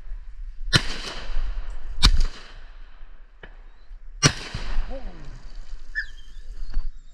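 Three shotgun shots over about three and a half seconds, each a sharp blast with a short ringing tail, with a fainter pop between the second and third.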